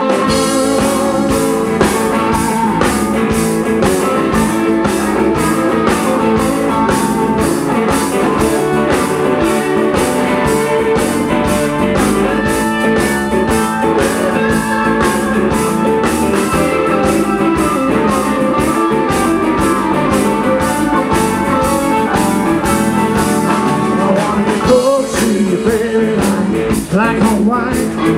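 Live roots-rock band playing an instrumental passage: electric guitars over a steady drum beat.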